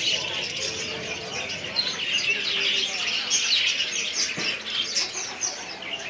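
Many small caged birds chirping and chattering at once: a dense, continuous twittering of quick high chirps.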